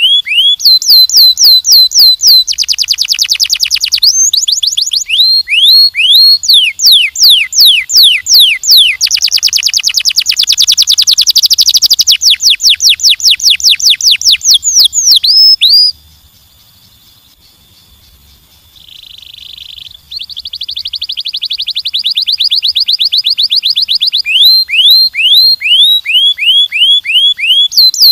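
Domestic canary singing: long runs of quickly repeated sweeping notes and fast trills, one phrase after another. It breaks off briefly about two-thirds of the way in, then resumes with a quieter, denser trill and more repeated sweeps.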